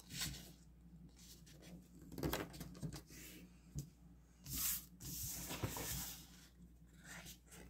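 Paper rustling and creasing as the side flaps of a paper envelope are folded over and pressed down by hand, in short, irregular bursts with soft brushing of the paper on the desk.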